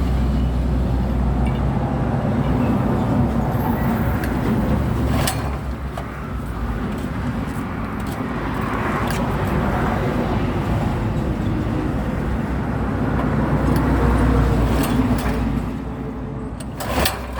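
Concrete mixer running steadily with a low machine drone, a few sharp knocks cutting through.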